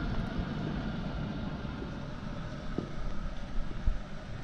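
Steady low vehicle rumble with wind on the microphone, and a couple of faint knocks near the end.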